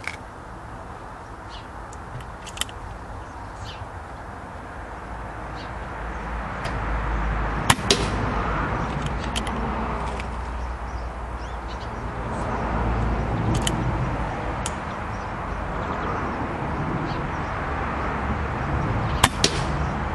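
Several sharp cracks of a .177 Brocock Contour air pistol firing pellets, some followed a split second later by a click of the pellet striking. Underneath runs an outdoor rumble that swells and fades twice.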